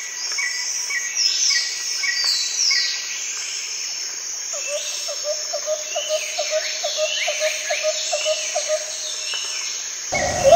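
Forest ambience of many birds chirping and calling over a steady high insect drone, with a quick run of short low notes, about three a second, through the middle. Just before the end a much louder pitched sound cuts in.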